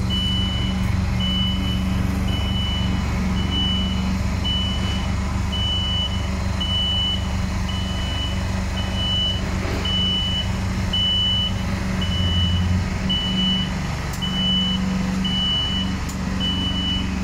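Genie Z-45/25J boom lift's motion alarm beeping steadily, about once a second, over the low, steady hum of the machine's power unit while the boom is being worked.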